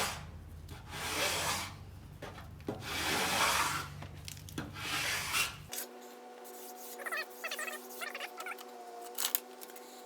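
Hand sanding of cured body filler on a bus bumper with a sanding block: about four long, rasping strokes. About six seconds in the sanding stops, and a steady hum with scattered small squeaks and clicks follows.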